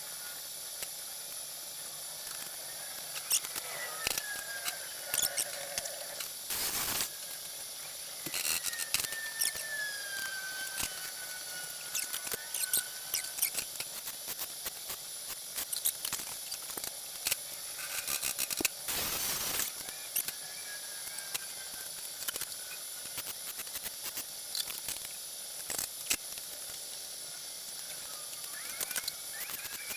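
Two short welding tacks, each a burst of arc noise under a second long, about twelve seconds apart, with small metal clicks and faint high squeaks that slide in pitch between them.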